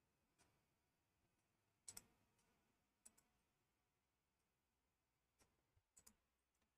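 Near silence with a handful of faint, scattered clicks, the clearest about two seconds in and two close together near the end.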